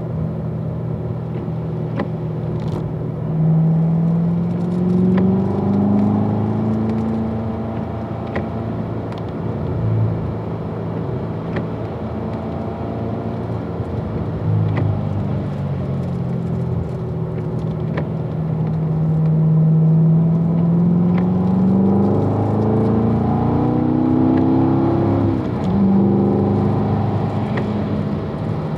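Chevrolet Corvette Grand Sport's 6.2-litre LT1 V8 heard from inside the cabin, pulling at low revs in third gear on a wet track. The engine note rises twice as the car accelerates out of corners. A short break about 25 seconds in is the upshift to fourth gear, after which the note climbs again.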